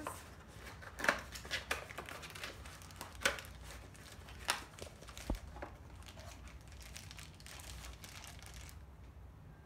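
Plastic wrapping crinkling and cardboard rustling as a wrapped kitchen item is lifted out of a shipping box, with scattered sharp crackles that thin out in the second half.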